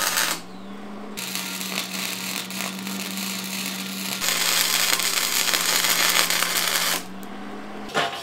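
Hobart Handler 210 MVP MIG welder arc crackling and hissing as a bead is laid, in several stretches, loudest in the middle, over a steady low hum. The arc stops near the end.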